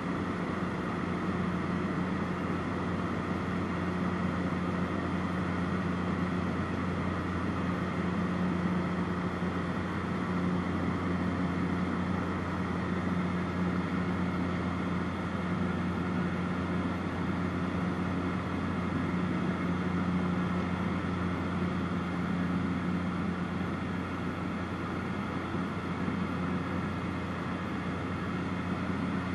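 Small high-wing propeller plane in flight: the engine and propeller give a steady, even drone with a low hum, under a constant rushing noise.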